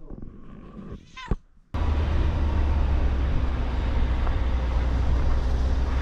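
A short animal call near the start, then, from an abrupt change about two seconds in, a loud steady rushing noise with a heavy low rumble.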